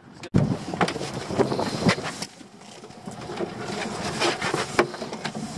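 Irregular knocks and clatter of a lobster pot and gear being handled in a small open boat, with a sharp thump about a third of a second in, over wind rumble on the microphone.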